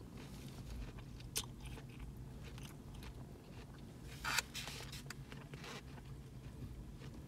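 A fork scraping and clicking in a takeout food container as chow mein noodles are lifted out, with light handling noises. The loudest is a short scrape about four seconds in.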